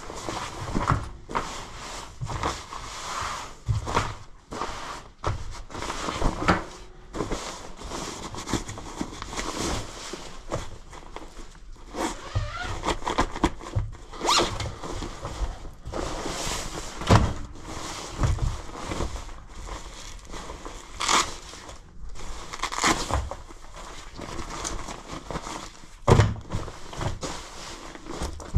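Rustling and swishing of a synthetic membrane-shell winter jacket as gloved hands handle and smooth it out, in irregular strokes with a few soft knocks.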